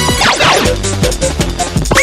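Electronic dance music with a steady beat from a pachinko machine's sound system, with a quick falling swoosh effect near the start.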